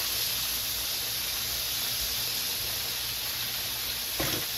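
Pork spare ribs frying in hot grease in a skillet, a steady sizzle, with one short knock near the end.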